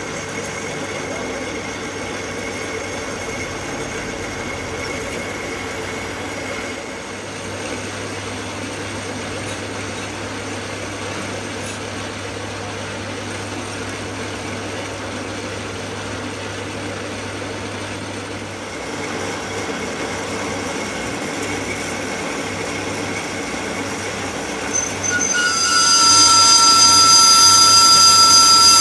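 Metal lathe running, the chuck spinning as a turning tool cuts a small cylindrical workpiece, a steady machine whir with a low hum. About 25 seconds in, the cut breaks into a loud, high-pitched squeal of several steady tones: the cutting tool squealing against the spinning work.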